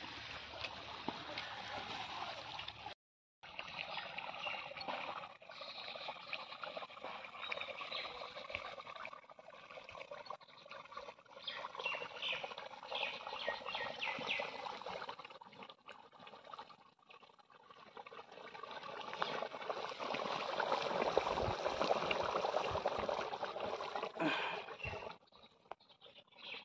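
Chicken curry simmering and bubbling in a wok over a wood fire, growing louder for a few seconds near the end.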